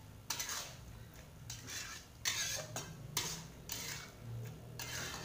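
Metal spatula scraping and stirring a thick mixture of kikil and green chilies in a metal wok, in about seven separate short scrapes.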